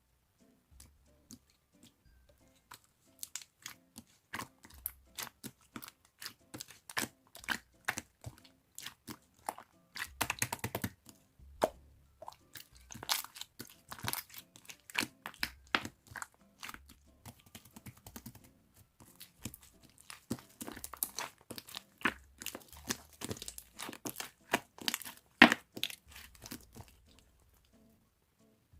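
Irregular sharp clicks, taps and crunchy knocks, in busy clusters with the loudest knock near the end, as of a glass being handled and set against hard surfaces.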